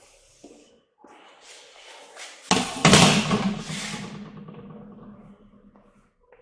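Chalk and hand knocking and scraping on a classroom blackboard, with a sudden thud about two and a half seconds in that fades away over the next few seconds.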